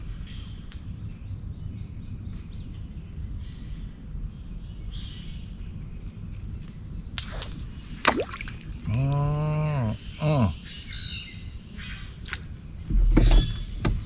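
Outdoor swamp ambience with repeated high chirps. About nine seconds in, a person's voice lets out a drawn-out sound that rises and falls in pitch, followed by a shorter one. Near the end come a few low knocks.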